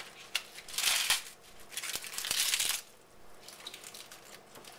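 Collard green leaves being torn apart by hand and stuffed into a blender jar: two crinkling bursts of tearing, about a second in and again near the middle, with a few small clicks.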